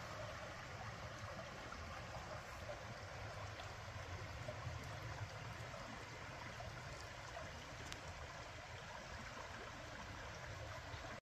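Shallow creek flowing over rocks: a steady, faint rush of running water with a low rumble underneath.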